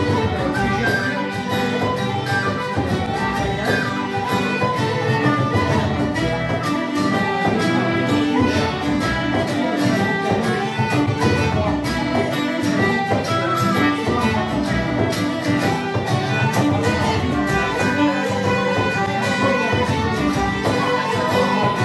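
Live Celtic folk tune from a small acoustic session: two small pipes carry the melody over a strummed acoustic guitar and a fiddle, playing together in a steady dance rhythm.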